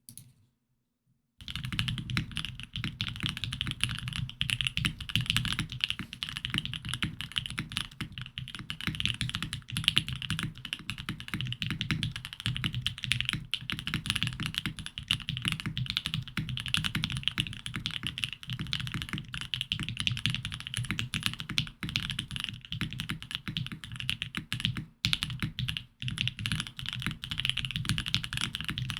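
Think 6.5 v2 mechanical keyboard with Marshmallow switches lubed with 205g0, typed on quickly and steadily: a dense, unbroken run of keystrokes that starts about a second and a half in.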